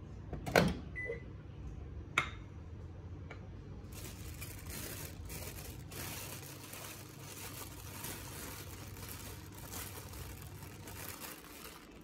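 Microwave oven at the end of heating: a knock and a short beep in the first second, then a sharp click about two seconds in as the door is opened. After that, a plastic bag crinkles for several seconds as the food is lifted out, over a low hum.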